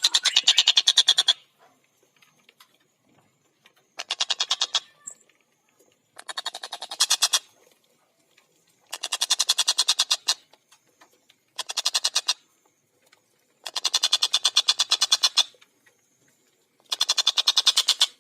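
Collared kingfisher (tengkek buto) giving its loud chattering 'kek-kek-kek' calls: seven rapid rattling series of about a second or two each, separated by short pauses.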